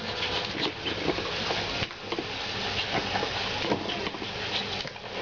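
Upturned clear plastic container scraping and knocking across a hard floor as a dog paws at it, a steady scraping hiss broken by many small clicks.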